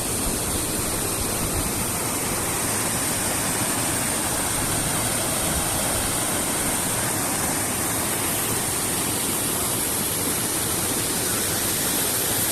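Dudhsagar waterfall: large falls of water pouring down, a steady, even rushing noise.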